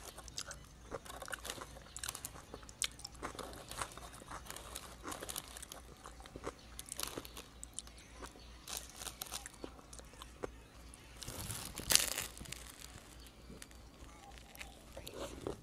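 Close-miked eating: biting and chewing a filled bread roll, with frequent small crunches and wet mouth clicks. One louder, brief noise about twelve seconds in.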